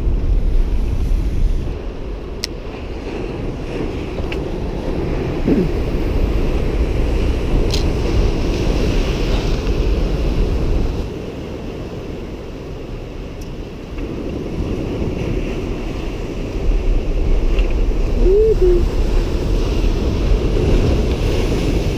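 Heavy sea surf breaking and washing against a concrete tetrapod breakwater, with wind rumbling on the microphone. The wash eases about halfway through and builds again a few seconds later.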